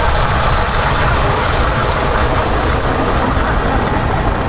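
Car driving at road speed: a steady mix of engine, tyre and wind noise with a constant low rumble.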